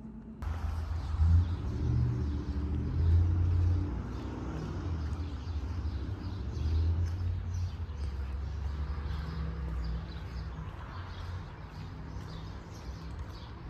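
Outdoor ambience dominated by a low rumble of vehicle traffic that swells and fades several times, with faint bird chirps.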